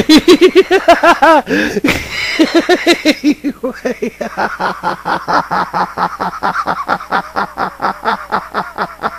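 A man laughing hard in a long fit, with rapid ha-ha-ha pulses about six a second. There is a brief catch about two seconds in, and the pulses fade off near the end.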